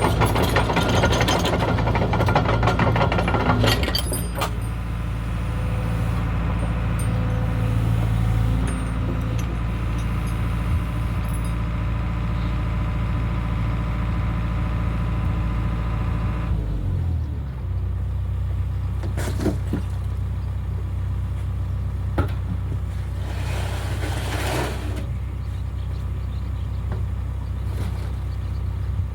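Excavator engine running steadily, with clanking and rattling in the first few seconds. About seventeen seconds in, the engine speed drops and the higher whine stops, leaving a lower, steady run with a few single knocks.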